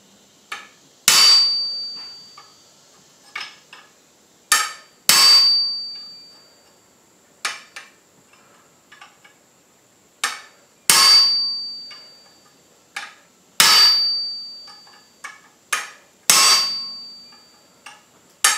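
Hammer blows driving a triangular punch into red-hot steel on an anvil to form the nose: heavy strikes every two or three seconds, each leaving a high, clear ringing note that fades over a second or two, with lighter taps in between.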